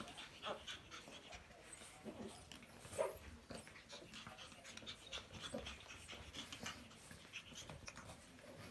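Adult pugs and black pug puppies playing, with faint quick, short breaths throughout. A single sharper, louder sound comes about three seconds in.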